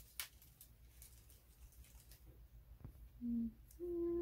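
Faint clicks and light handling noise as a ring light and its cord are handled. Near the end a woman hums two short steady notes, the second higher than the first.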